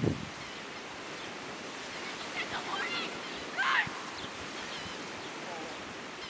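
Gentle surf washing on a beach with wind on the microphone, a steady rush of noise. There is a low thump of wind on the mic at the start, and a few short high cries come about two and a half and nearly four seconds in.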